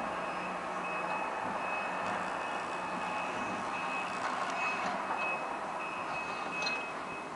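Heavy-equipment backup alarm beeping repeatedly at one steady high pitch over a running engine; the beeping stops near the end.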